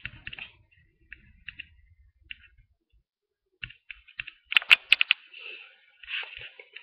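Computer keyboard keys being tapped: scattered single clicks, then a quick run of louder keystrokes about two-thirds of the way through.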